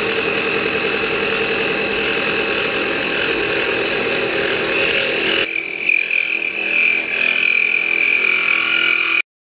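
Desktop CNC mill's spindle and end mill cutting a metal block: a loud, steady, noisy whine of the cut. About five and a half seconds in the lower part drops away and a high whine dominates, then the sound cuts off suddenly near the end.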